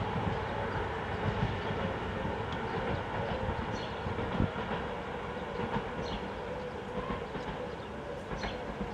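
CFR Class 41 electric locomotive and its passenger train pulling away into the distance: rolling rumble with a steady electric whine, slowly fading, with a few scattered clicks.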